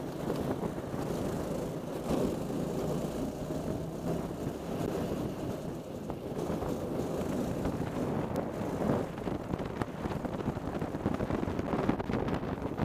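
Racing kart's engine running at speed, heard from a camera mounted on the kart, with wind buffeting the microphone.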